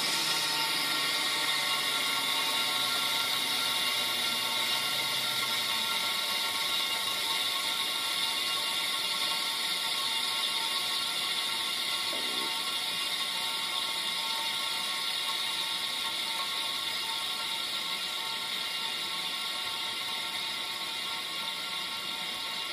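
Fidget spinner on new SKF ball bearings whirring as it coasts freely, a steady whir and hiss that slowly fades as it spins down. A low hum slides down in pitch over the first few seconds.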